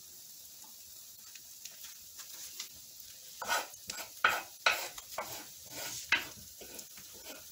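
Omelette frying quietly in a non-stick pan with a faint hiss, then a series of sharp clicks and scrapes from about halfway through as the chopped bacon is spooned onto it.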